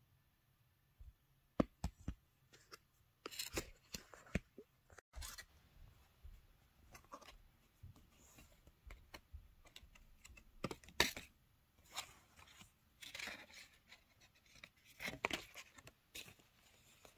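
Paper postcards and envelopes handled by hand: faint rustling and sliding of card, with irregular small taps and clicks as pieces are picked up and set down.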